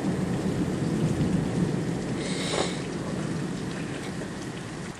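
Low rumble of thunder slowly dying away over steady rain, with a brief higher hiss a little past two seconds in.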